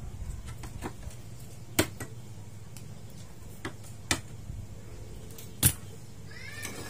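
Light clicks and knocks of hands handling and pressing on the plastic back chassis and reflector sheet of an LED TV, scattered irregularly, the loudest about two and five and a half seconds in.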